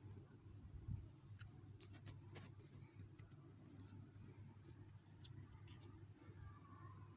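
Near silence: a faint low hum with a few scattered faint clicks in the middle.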